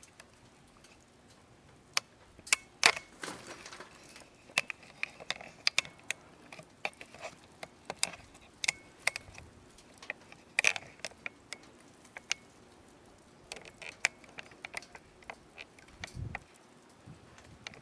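Firewood crackling and popping as it burns in a fire pit: irregular sharp snaps, some in quick clusters, with a short low thud near the end.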